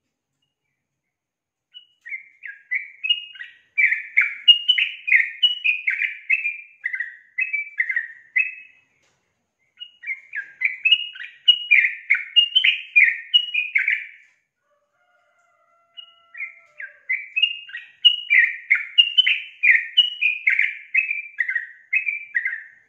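Female yellow-vented bulbul (trucukan) singing in three bouts of quick, bright chattering notes, each lasting several seconds with short pauses between. The first bout starts about two seconds in.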